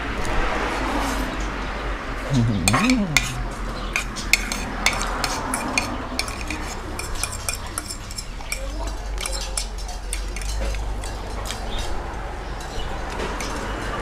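Metal spoon and fork clinking and scraping on a ceramic plate while rice and stir-fry are scooped up and eaten, many sharp clicks, thickest in the first half. A brief low sliding hum about two and a half seconds in.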